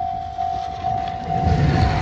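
Japanese railroad crossing warning bell ringing at about two strokes a second while a train approaches, its rumble on the rails swelling from about halfway in.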